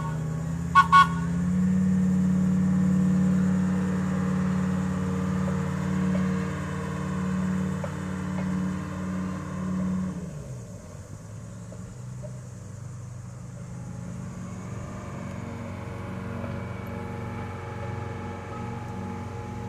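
Short horn toots in the first second, then the diesel engine of a converted streetcar runs loud and steady. About halfway through it drops abruptly to a quieter, lower engine sound.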